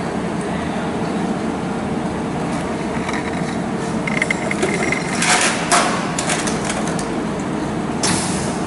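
Steady mechanical rumble, with a quick run of sharp metallic clinks and knocks about halfway through and one more near the end, like metal pieces or tools being handled in a welding shop.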